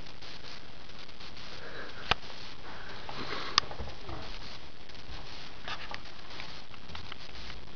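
Soft scuffling and breathy sniffing-like noises from two kittens play-fighting on a bedspread, over a steady hiss, with two sharp clicks about two and three and a half seconds in.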